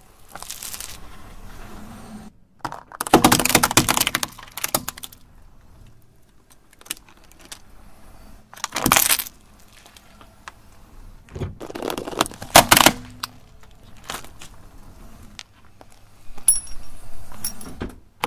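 A car tyre rolling slowly over small objects on asphalt and crushing them one after another: about five or six separate bursts of crunching and crackling with short quiet gaps between, the loudest a few seconds in.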